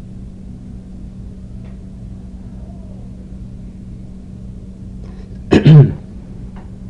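A steady low hum, then about five and a half seconds in a person gives a short, loud double cough.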